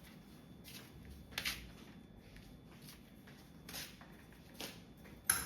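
Quiet room tone with a few faint, short clicks and rustles scattered through it, the loudest one near the end.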